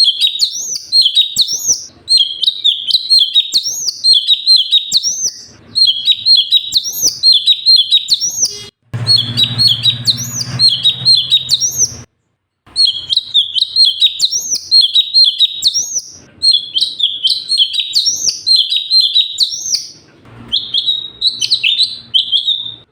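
Cucak cungkok songbird singing: rapid, loud runs of repeated rising-and-falling whistled notes, delivered in bursts of a few seconds with short pauses between them. Partway through there is a low hum under the song, and the sound cuts out completely for about half a second.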